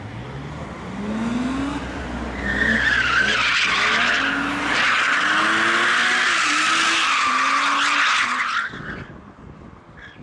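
BMW E34 M5 drifting, its tyres squealing loudly for about six seconds while its straight-six engine revs up again and again. The squeal cuts off near the end, leaving the engine fading away.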